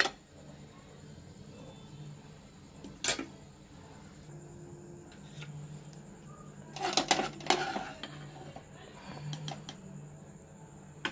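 Metal spoon scraping and knocking against a pressure cooker pan while stirring thick jaggery jam. There are a few separate clatters: one about three seconds in, and a louder run of scrapes around seven seconds.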